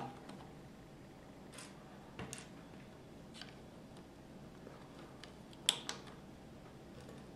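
LEGO bricks clicking as small plastic pieces are pressed and snapped onto a model car: a handful of separate sharp clicks, the loudest about three-quarters of the way in.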